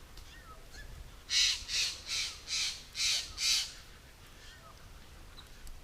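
A corvid giving a quick series of six harsh caws, about two a second, over faint chirps of smaller birds.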